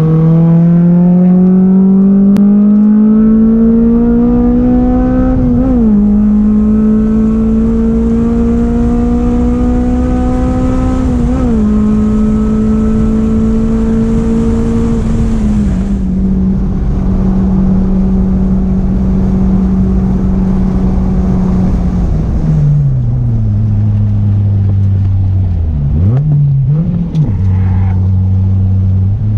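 Honda S2000's four-cylinder engine heard from inside the cabin on track. The revs climb twice, each time dipping briefly at an upshift, then hold steady for several seconds. After about twenty-three seconds the revs fall away as the car slows, with two quick throttle blips on downshifts, and climb again near the end. A steady rush of wind and road noise runs underneath.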